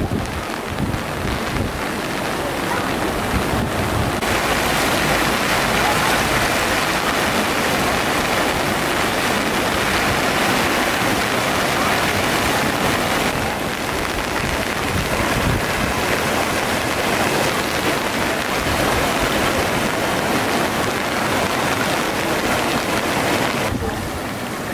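Floodwater from the overflowing Geul river rushing across a street in a steady, loud wash of noise, stronger for a stretch from about four seconds in to about halfway.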